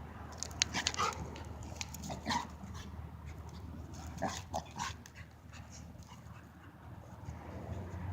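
A dog at play, giving short whimpering sounds and panting among sharp clicks and knocks, busiest in the first five seconds and quieter after.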